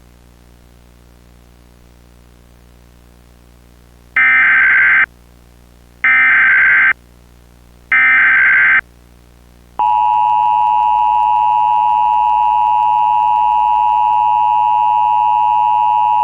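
Emergency Alert System tones over a faint low hum: three short screeching data bursts of the SAME header, each just under a second and about two seconds apart, then the steady two-tone EAS attention signal starting about ten seconds in. The tones open an alert for a child abduction emergency.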